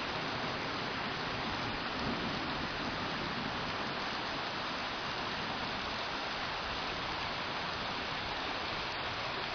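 Steady rain falling and splashing on surfaces, a constant even hiss.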